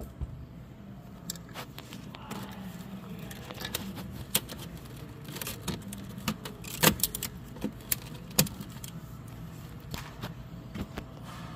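Socket wrench and extension clinking against the metal of a Thermo King condenser fan motor and its mount while its bolts are worked, giving irregular sharp metallic clicks, a few louder ones near the middle, over a steady low hum.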